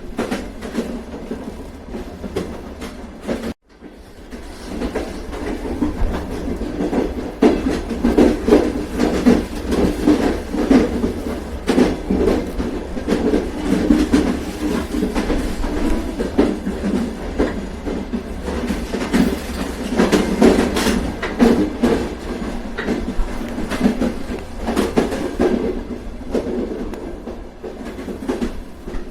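Train running on rails, its wheels clattering rhythmically over the rail joints over a steady rumble. The sound cuts out for a moment a few seconds in, then comes back louder.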